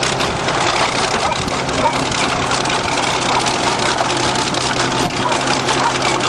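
Bulldozer's diesel engine running steadily under load, with dense crunching and crackling from the car being crushed beneath it.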